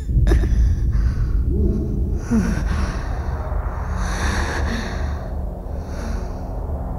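A worn-out boxer's heavy, laboured breathing: several slow, hissing breaths and gasps over a low rumble, with one sharp thump just after the start.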